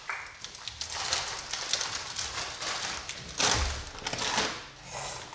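Plastic snack wrappers and chip bags crinkling and rustling as they are picked up and handled, with two louder bursts in the second half.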